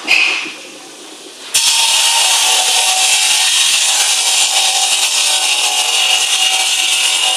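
Tube-making machinery: a loud, steady hiss with a faint hum under it cuts in abruptly about one and a half seconds in, after a short burst of noise right at the start.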